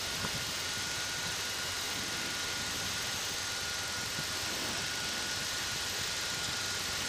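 Steady drone of a Piper PA-28-151 Cherokee's four-cylinder Lycoming engine and propeller, heard inside the cabin in flight, with a faint steady high tone above it.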